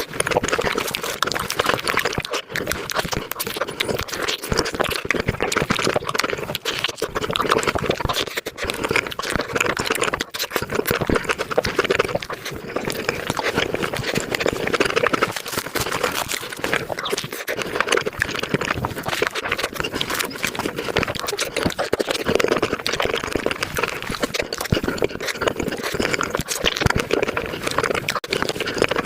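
Close-miked ASMR eating sounds of fruit sandwiches (soft bread, whipped cream and fruit) sped up about five times, so the chewing and mouth sounds run together into a rapid, dense stream of wet clicks and smacks.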